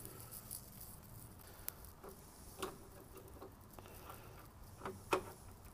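Faint, scattered clicks and ticks of a screwdriver turning a screw into a metal tailgate-handle latch assembly, with a sharper click about five seconds in.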